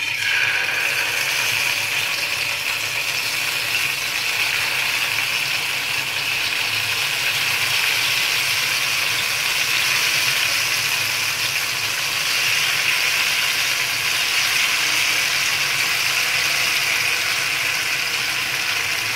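Masala-coated taro root pieces sizzling steadily in hot oil, starting suddenly as the first pieces go into the pan.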